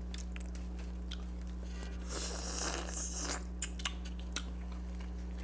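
Close-miked eating of a large tiger shrimp. About two seconds in comes a bite with about a second of dense, wet mouth noise, then chewing with small mouth clicks.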